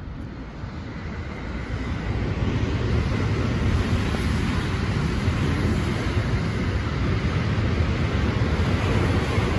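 The 285 series Sunrise Express sleeper train passing through the station without stopping. It grows louder over the first two to three seconds as it comes in, then holds a steady loud rumble and rail noise as the cars go by.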